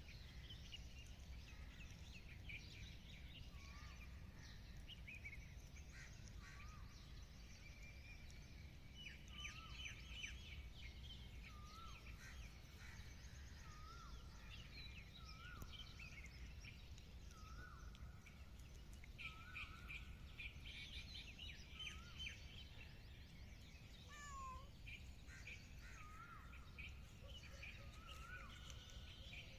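Faint birds chirping and calling: many short chirps and small upward-hooked notes repeating throughout, over a low steady background rumble.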